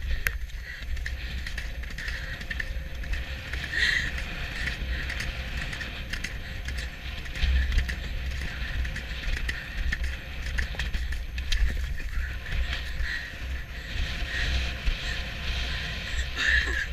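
Wind rushing over a head-mounted camera's microphone while a horse canters across turf, with the horse's hoofbeats underneath.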